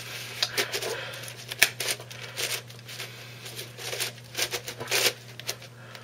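Plastic clicking and rattling of a new, still unlubricated Super Pochmann Petaminx twisty puzzle as its layers are turned by hand. The clicks are irregular, with one sharper click about one and a half seconds in.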